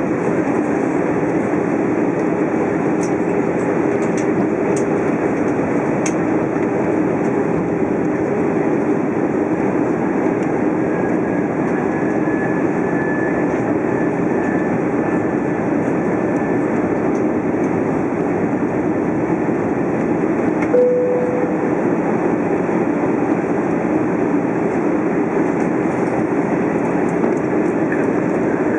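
Steady cabin noise inside an Airbus A320 on its approach: twin turbofan engine hum and rushing airflow, heard from a window seat beside the engine. About two-thirds of the way through, a short low tone sounds once.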